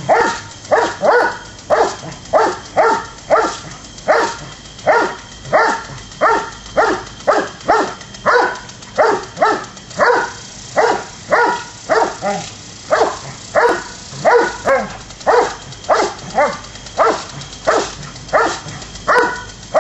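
Doberman barking over and over, about two barks a second, as it attacks a spraying lawn sprinkler.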